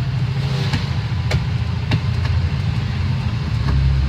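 Bus engine running with a steady low rumble, heard from inside the cabin, with scattered sharp clicks and rattles.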